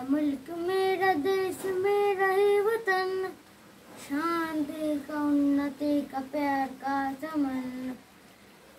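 A boy singing solo and unaccompanied, with held, stepping notes in two phrases: a short break after about three seconds, and the voice stops about a second before the end.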